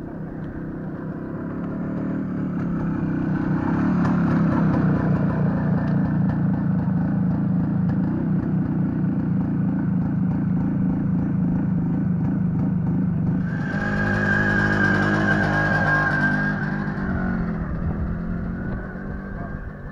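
Motorcycle engines running and pulling away on gravel, the sound building over the first few seconds. About two-thirds of the way through, a brighter, louder burst of revving lasts a few seconds, then eases off.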